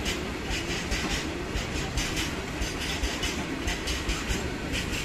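Freight train of open-top wagons rolling past at speed, its wheels clacking over the track in a steady run of rhythmic clicks over a continuous rumble.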